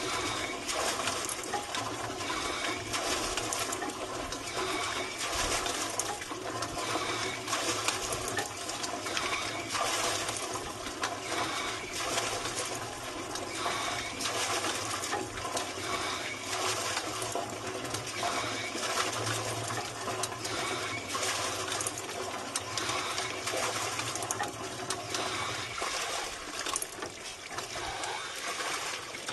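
Water gushing from a deep-well hand pump's PVC discharge pipe into a 55-gallon barrel as the pump is worked by hand: a steady splashing pour with frequent irregular splashes.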